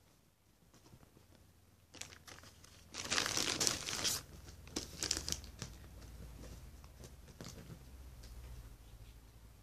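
Packaging crinkling and rustling as it is unwrapped by hand, quiet at first, loudest in a burst about three seconds in, then settling to a softer rustle.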